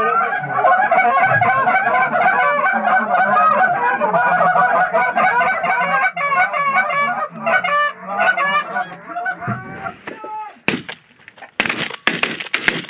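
Goose calls blown hard by hunters: rapid, overlapping honks and clucks that thin out toward the end. Then, about eleven seconds in, a quick volley of shotgun blasts, five or six shots within about two seconds.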